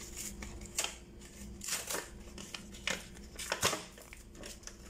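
Plastic blister packaging and its cardboard backing card being pulled apart and handled, with irregular crinkles and sharp plastic clicks.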